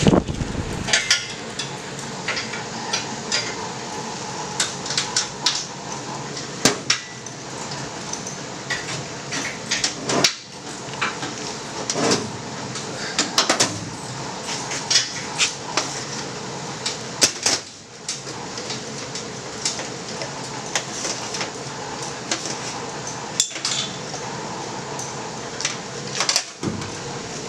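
Irregular metallic clanks and clatter of hand tools and loose parts being handled in a car's engine bay, over a steady hum.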